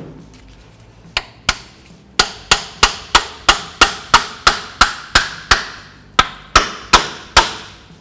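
Small hammer striking the front brake caliper of a Toyota FJ Cruiser to knock loose a brake pad that is stuck in it. A single duller knock comes first, then about seventeen sharp metallic blows with a short ring after each: two at first, then a steady run of roughly three a second with one brief pause.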